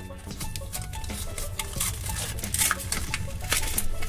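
Hard plastic toy case clicking and rattling as it is handled and opened, with a foil blind bag crinkling as it is pulled out, mostly in the second half. Quiet background music plays underneath.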